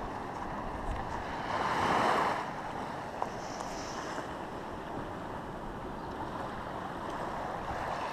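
Ocean surf washing against the shore, with wind rushing on the microphone; a wave swells up louder about two seconds in.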